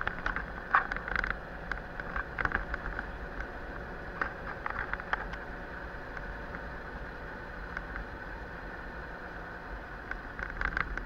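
Engine and road noise inside the cab of a moving vehicle, with short clusters of rattling clicks near the start, around the middle and near the end.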